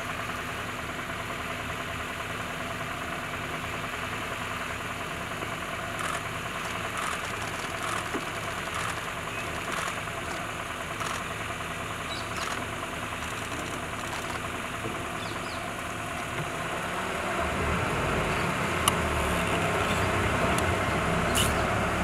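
Safari vehicle's engine idling steadily, then revving up louder about seventeen seconds in as the vehicle moves off.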